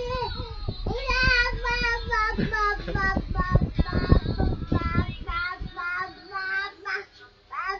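A baby girl cooing and babbling in long, high, sing-song vowel sounds that waver up and down, pausing briefly near the end. Low bumping noises run under her voice in the middle.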